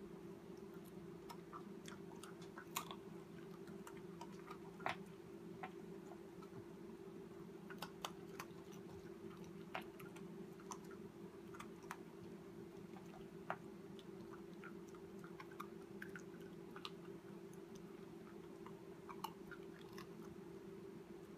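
Corgi puppy chewing food, with scattered faint crunches and clicks at irregular intervals. A steady low hum runs underneath.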